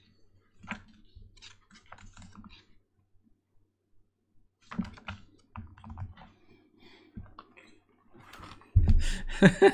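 Paperback book being handled and leafed through: light taps, clicks and paper rustles, with a quiet pause in the middle and a louder thump near the end.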